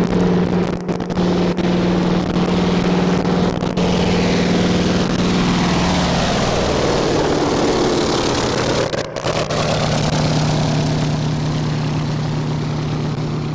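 Small plane's piston engine and propeller running steadily in flight; the engine note drops slightly about six seconds in.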